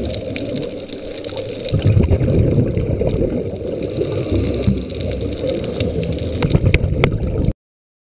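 Underwater sound picked up by a scuba diver's camera: a low, churning rush of exhaled regulator bubbles that swells twice, with scattered sharp clicks from the reef. It cuts off suddenly about seven and a half seconds in.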